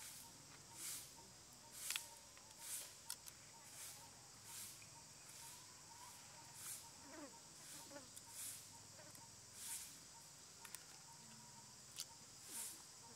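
Faint outdoor ambience: a steady high insect hiss that pulses roughly once a second, with a few faint short chirps about halfway through.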